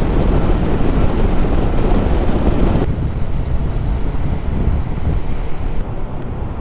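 Wind rushing over a motorcycle camera's microphone at road speed, a loud steady rush with the road and bike noise buried under it. It changes abruptly about three seconds in, turning duller, and drops a little again near the end.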